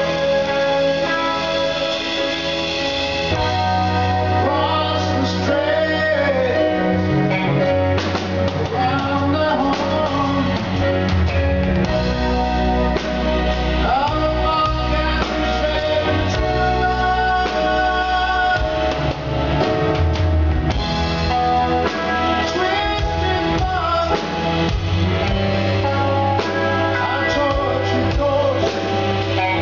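Live rock band playing: electric guitar, bass guitar, drums and keyboards together.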